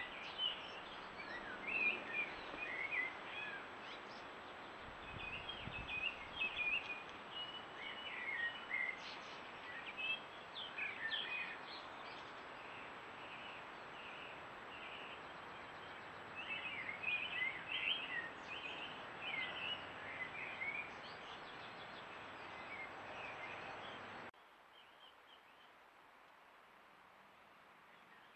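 Songbirds singing in bouts of quick chirping phrases over a steady hiss, with pauses between bouts. Near the end the sound drops abruptly to a fainter hiss with only faint birdsong.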